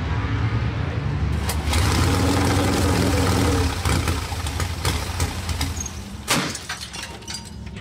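Drag motorcycle engine running on a stand, revving up and back down for a couple of seconds, then settling lower, with one sharp bang about six seconds in.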